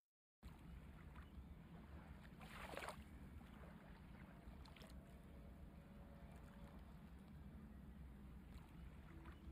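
Near silence: a faint low rumble and hiss, with one brief soft swish about two and a half seconds in.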